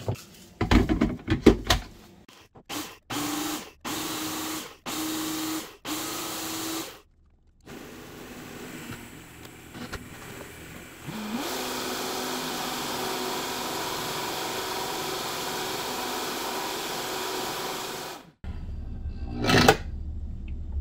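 Blenders grinding dried zucchini shreds into flour. A personal blender is pulsed in about five short bursts, then a Vitamix 5200's motor spins up, rising in pitch, runs steadily at high speed, and cuts off suddenly near the end.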